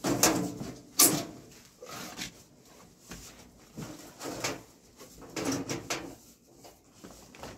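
Sheet-metal stovepipe sections being pushed together and fitted onto a stove, metal scraping and knocking on metal, with two sharp knocks near the start and smaller scrapes and knocks after.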